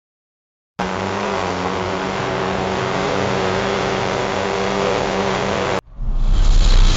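Sound effects: a steady engine-like rushing noise with a low hum starts about a second in and cuts off abruptly after five seconds. It is followed at once by a deep boom with a long low rumble.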